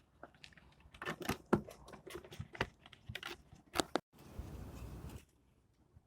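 Handling noises: a string of sharp clicks and knocks, then a short rustle lasting about a second, about four seconds in.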